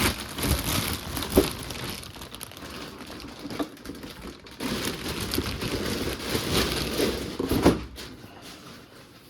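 Plastic bag crinkling and rustling as an RC crawler is pulled out of it, with a couple of light knocks in the handling, one about a second and a half in and one near the end.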